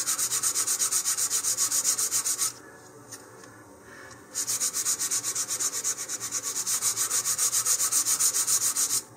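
150-grit sandpaper on a sanding tee rubbed back and forth over a sheet of balsa fin stock, in quick, even rasping strokes of about four or five a second. The strokes come in two bouts with a pause of nearly two seconds between them. This is light sanding to give the wood a uniform surface before the fins are cut out.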